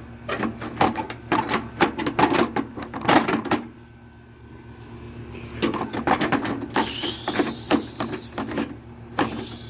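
Steady low hum of a running outdoor air-conditioner unit, under rapid irregular clicks and rattles for the first few seconds and a hissing rush a little past the middle.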